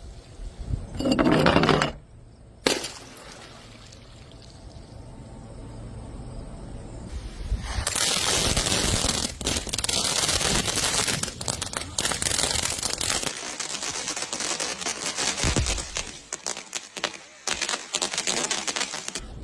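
Glass bottles cracking and breaking: a short loud break about a second in and a sharp crack just after, then from about eight seconds a long, dense crackle of many small cracks as the glass gives way and crunches.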